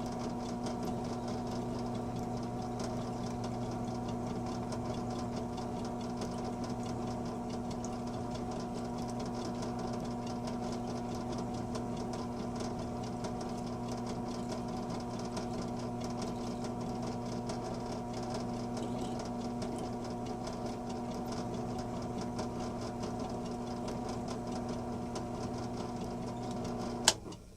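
Electric motor of a machine spindle running steadily at about 620 RPM, turning a chucking reamer through a lubricated hole in a steel vise screw. There is a sharp click near the end as it is switched off, and the hum stops.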